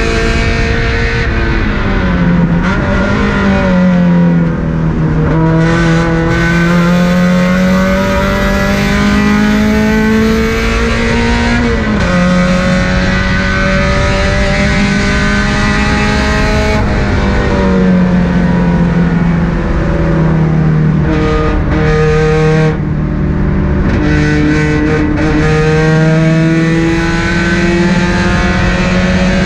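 Car engine working hard around a racetrack lap: the pitch climbs for long stretches under acceleration, drops sharply about twelve seconds in at a gear change, and falls away where the revs come down for corners.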